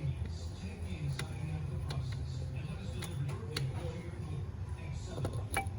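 A few light, sharp clicks and taps of metal parts as a replacement brake vacuum pump is worked by hand into place on the engine, two of them close together near the end, over a low steady background hum.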